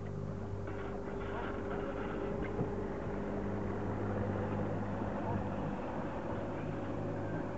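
Motorboat engine running at a steady speed, a constant low drone.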